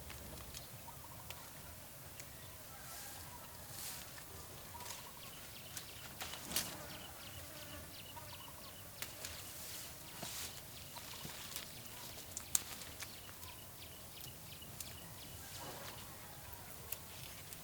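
Poultry calling now and then on a farm, over scattered sharp clicks and rustles.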